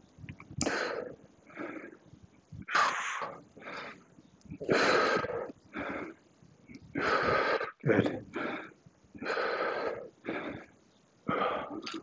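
A man breathing hard through his mouth during a set of dumbbell Romanian deadlifts, with heavy breaths in and out about once a second in time with the reps.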